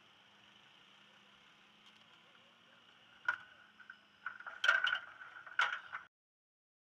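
Faint steady hiss with a low hum, then a sharp click about three seconds in and a run of loud knocks and rustling as a hand handles the camera mount, after which the sound cuts off suddenly.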